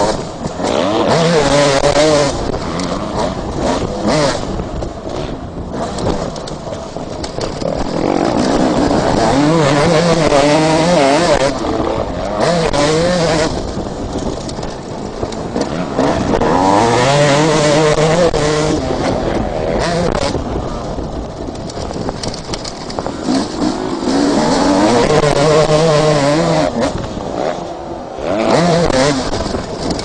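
Two-stroke motocross bike engine revving hard under acceleration, its pitch climbing in four or five long surges and dropping back between them as the rider shifts and rolls off.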